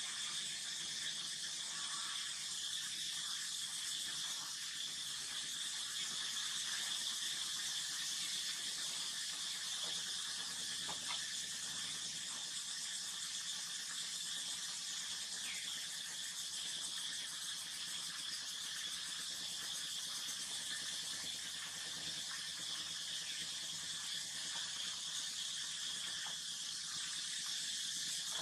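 Steady, high-pitched insect chorus, a continuous shrill buzz that never changes.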